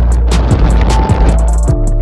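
Background music with a steady beat: deep bass notes that slide down in pitch, with quick sharp percussion clicks over them.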